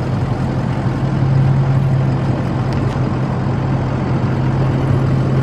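Motor vehicle engine idling: a steady low hum with a rumble under it, swelling slightly about a second in.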